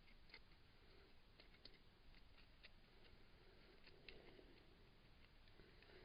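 Near silence with faint, scattered light ticks and crackles: dry dirt crumbling as a dug soil plug is broken apart by hand.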